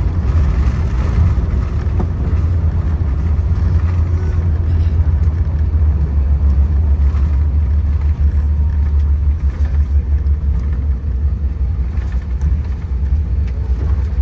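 Steady low rumble inside an airliner cabin as the jet rolls along the runway after landing, from the engines and the ground roll.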